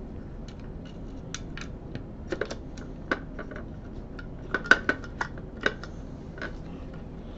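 Irregular light clicks and taps from small hard microscope parts and a hand tool being handled during reassembly, with a quick run of sharper clicks a little before five seconds in.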